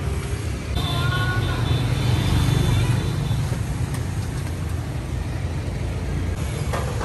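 Road traffic passing by: a steady low rumble of engines, with a brief high-pitched tone about a second in.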